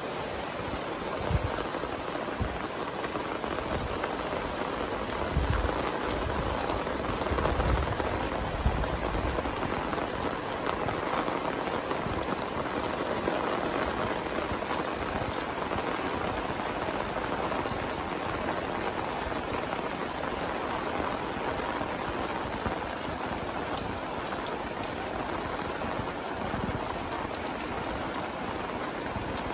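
Heavy rain pouring down steadily in a dense, even hiss, with a few low rumbles in the first ten seconds or so.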